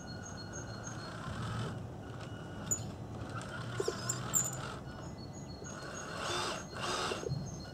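Tamiya radio-controlled scale truck moving slowly backwards, its small electric drive humming and whirring. A rapid run of short high beeps sounds at the start and again about five seconds in, with brief bird chirps in between.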